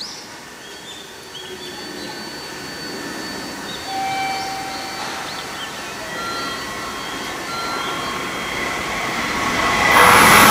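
N700-series Shinkansen train arriving at the platform on a curve, its rolling rumble and hiss slowly building as it slows in. Thin high tones come and go over the noise. Near the end the sound jumps louder as the lead cars draw close.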